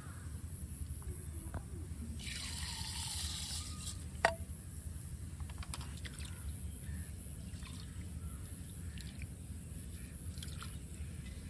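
Rice being washed by hand in a small terracotta pot of water. About two seconds in the grains go into the water with a short hissing pour, and a sharp knock follows. Then come soft splashes and sloshing as a hand rubs the rice in the water.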